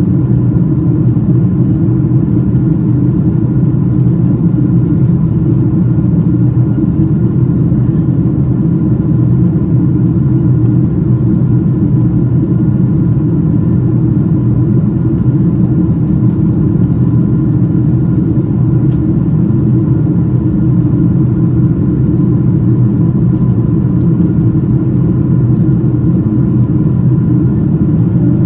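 Steady drone of engine and airflow noise heard inside the cabin of a Boeing 777-200ER airliner in flight, with a faint steady whine above the low rumble.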